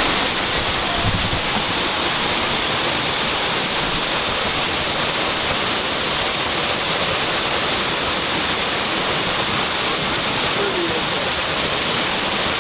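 Waterfall, a steady rush of falling water heard close up.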